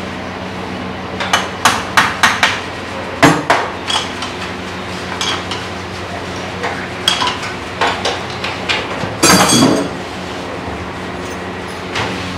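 Hand tools clinking and tapping on the handlebar fittings of a Honda CG 125 motorcycle during a handlebar adjustment: irregular sharp metallic clicks in small clusters, with a brief rasp about nine seconds in, over a steady low hum.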